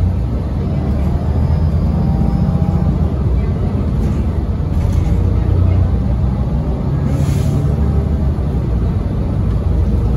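Gillig BRT transit bus heard from inside while under way: a steady low engine and road drone. A short hiss comes about seven seconds in.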